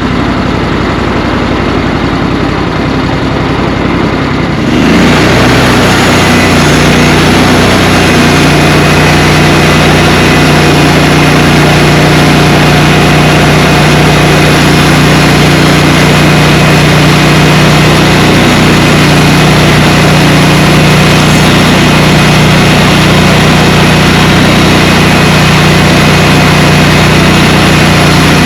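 Engine running steadily, then throttling up about five seconds in, growing louder and higher, and holding at that higher speed.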